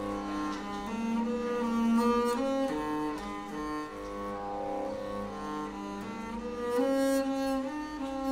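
Music on bowed strings, playing slow, held notes that overlap and change pitch every second or so.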